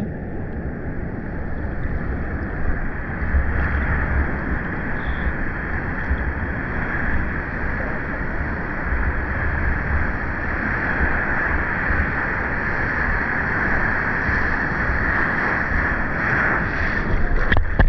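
Steady rush of sea water and surf heard from a camera held at the water's surface, with wind and water buffeting the microphone. It grows a little louder near the end as a wave breaks close by.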